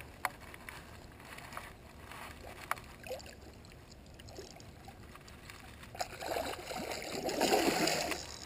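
A hooked fish splashing hard at the surface close to the bank, starting about six seconds in and growing loud. Before that there are only a few faint clicks and knocks from the fishing rod and gear being handled.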